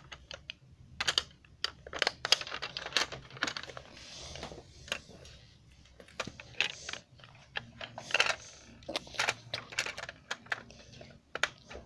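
Small plastic model train parts being handled and fitted together: irregular sharp clicks and light taps, with a brief soft rustle a few seconds in.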